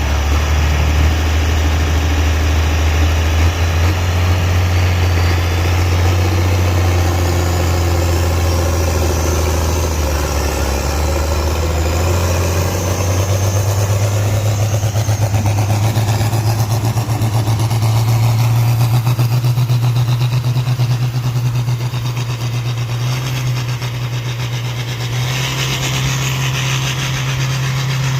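A loud engine running steadily, its pitch stepping up about halfway through and then holding.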